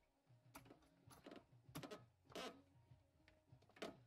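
Near silence with a faint low hum and about half a dozen scattered faint clicks and taps.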